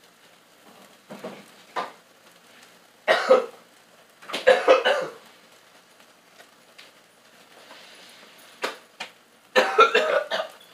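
A man coughing in three harsh bouts: about three seconds in, again a second later, and once more near the end.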